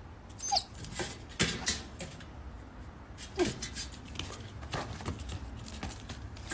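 A dog making a couple of brief falling whines among scattered taps and knocks.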